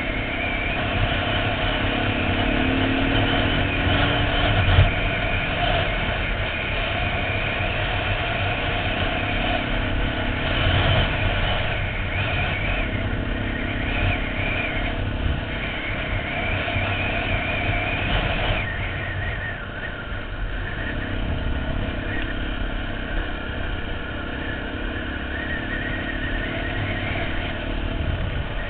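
Dirt bike engine running under way from the rider's helmet camera. The note rises and falls with the throttle and drops back about two-thirds of the way through.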